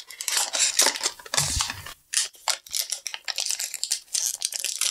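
Handling of a small cardboard blind box and the crinkly plastic bag inside it: a run of rustles and crackles as the toy is pulled out and the bag handled, with a brief pause about two seconds in.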